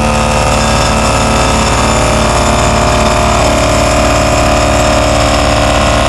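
Vibe Drive Pole-Cat hydraulic vibratory post driver buzzing steadily as it drives a wooden fence post into the ground, over the running engine of the machine that carries it. A little past halfway one tone in the hum steps slightly higher.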